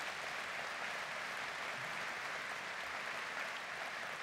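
Large seated audience applauding steadily: many hands clapping at once in an even, sustained patter.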